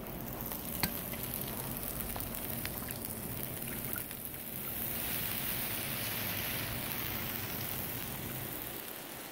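Fried rice and shrimp with vegetables sizzling on a Blackstone flat-top griddle, the sizzle growing louder about halfway through. A single sharp click just under a second in.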